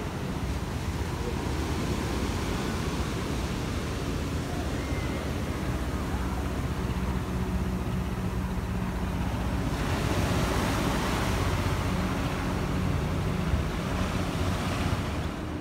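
Ocean surf breaking and washing in foam below a pier, with wind on the microphone. The wash swells louder for a few seconds about ten seconds in.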